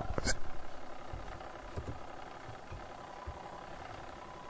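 Low steady background hum with a thin, faint steady tone, and a single sharp click just after the start.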